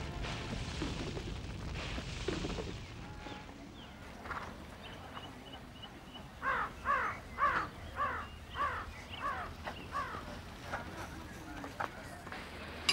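A crow cawing, a quick run of about eight caws several seconds in, with faint small-bird chirps just before.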